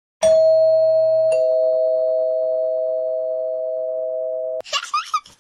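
Two held electronic tones: a higher one starts about a quarter second in and a lower one joins about a second later. Both sustain together and cut off suddenly near the end, when a baby starts giggling.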